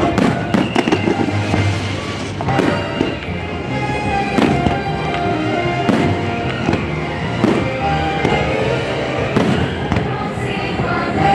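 Fireworks shells bursting one after another at uneven spacing, over the show's music playing loudly.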